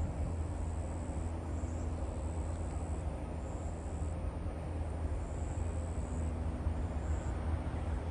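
Outdoor ambience by a wooded swamp: a steady low rumble under a thin, high-pitched buzz that comes and goes in stretches of a second or two.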